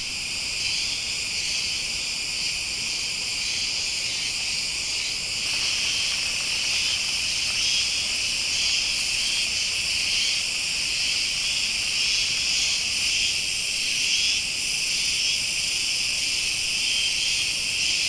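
A chorus of cicadas calling steadily in a continuous high-pitched drone.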